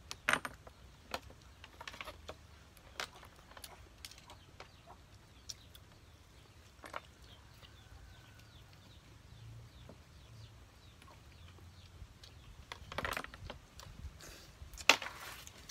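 Eating sounds from a meal of sikad-sikad sea snails: scattered sharp clicks of shells knocking together and being picked at, with two louder clacks or slurps near the end. Faint bird chirps are in the background.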